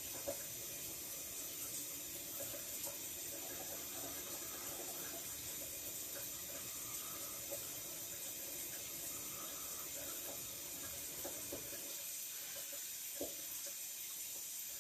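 Steady faint hiss with a few soft, brief taps scattered through it.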